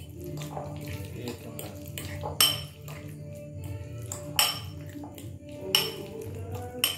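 A metal spoon stirring a wet corned-beef filling in a ceramic bowl, with four sharp clinks of spoon on bowl spaced a second or two apart from about two seconds in, over steady background music.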